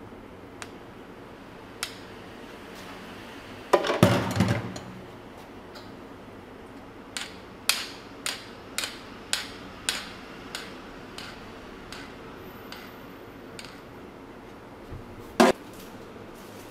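A blender jug and a long spoon knocking and clinking against a tall drinking glass while a blended iced drink is poured and finished. There is a cluster of loud knocks about four seconds in, then a run of light clinks about two a second, and one sharp knock near the end.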